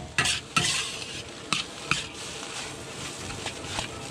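Metal spatula scraping and tapping against a large steel wok as fried rice with egg is stir-fried, over light sizzling. A few sharp scrapes and taps come in the first two seconds, fainter strokes after.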